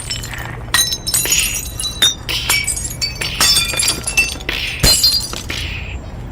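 Glass shattering and clinking sound effects: a series of sharp crashes, each followed by bright ringing shards, coming about every half second to a second.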